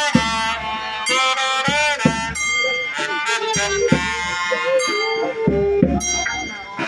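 Music with a wavering, gliding melody line over a recurring low bass.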